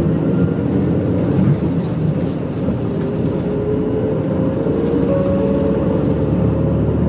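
Medium-size route bus running at cruising speed, heard inside the passenger cabin: a steady engine and road drone with a faint whine that slowly rises in pitch.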